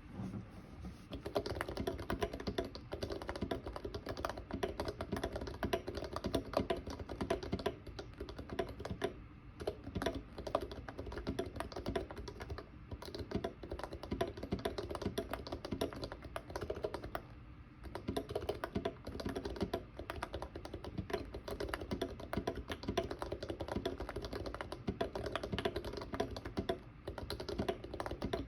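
Steady, fast typing on a Norbaur Heavy 9 Topre keyboard with lubed sliders and KBD Fans Hipro keycaps: a dense run of key presses, with brief pauses about nine and seventeen seconds in.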